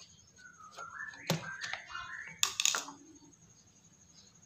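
Clicks and clatter of small hard parts as a carburettor is unscrewed and pulled off a knapsack sprayer's small engine, with sharp knocks about a second in and a cluster of clicks near the middle.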